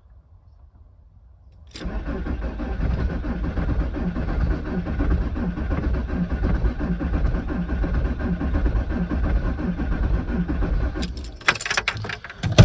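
VW T4 five-cylinder diesel being cranked by its starter motor on a cold start with only three of its five glow plugs working. It cranks with an uneven pulsing for about nine seconds and then stops, followed by clicks and a sharp knock at the very end.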